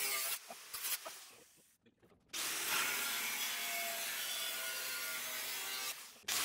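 Angle grinder with a thin cut-off disc cutting through a sheet-metal rear fender patch panel. After a short cut at the start, the grinder stops and winds down for about two seconds. It then cuts steadily for about four seconds, breaks off briefly, and starts cutting again just before the end.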